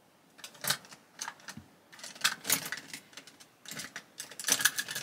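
Makeup products and brushes clicking and clattering against each other and the table as they are moved about in a search for a mislaid brush, in uneven clusters of small hard knocks that start about half a second in.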